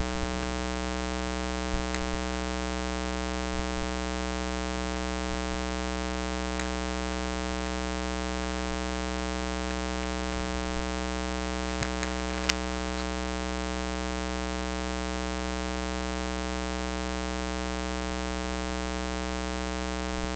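Steady electrical buzz, a mains-type hum with many overtones, unchanging in level and pitch, with a few faint clicks.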